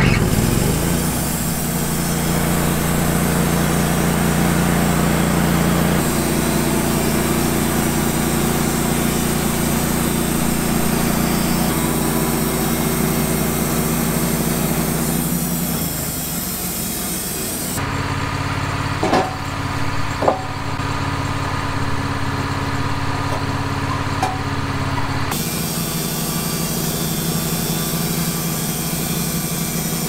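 Wood-Mizer LT15 portable bandsaw mill running steadily as its band blade cuts through fresh loblolly pine, sawing it into 2x4 lumber. Two sharp knocks come a little past the middle.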